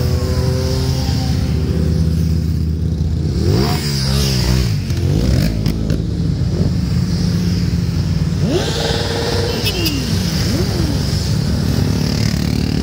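A column of motorcycles riding past one after another, their engines running in a steady mixed drone. The engine pitch sweeps up and down sharply about four and nine seconds in as bikes pass close and riders work their throttles.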